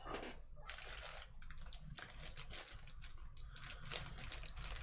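Rapid, irregular light clicking and crinkling from a small plastic bag of tiny 1/87-scale model truck tires being handled, the little tires clicking against each other inside it.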